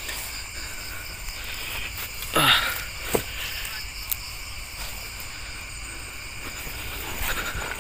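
Steady night chorus of crickets and other insects, with several unbroken high trills. About two and a half seconds in comes a brief louder sound that falls in pitch, followed by a couple of sharp clicks from handling.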